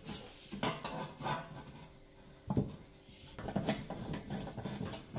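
Sheet-metal fan cover of a Beko fan oven knocking and scraping against the oven's metal cavity as it is fitted back over the fan: a few separate clanks, with a longer run of rattling near the end.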